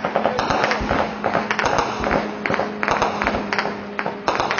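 Rapid, echoing bursts of distant automatic gunfire firing tracer rounds, a dense run of sharp cracks.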